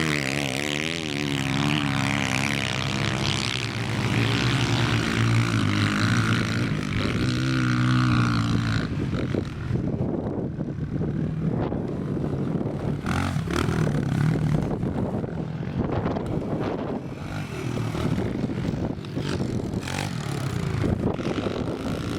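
Small single-cylinder four-stroke pit bike engines running and revving, the pitch rising and falling through the first half. After that, a rougher rushing noise with many scattered knocks, and engine sound coming through again now and then.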